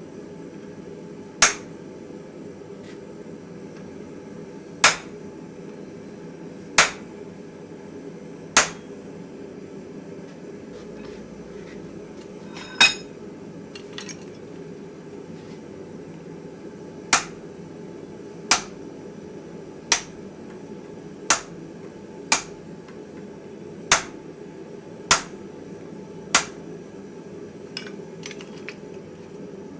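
A hammer striking steel in slow, single ringing blows, about thirteen in all and spaced unevenly, with a longer pause near the middle, over a steady low hum.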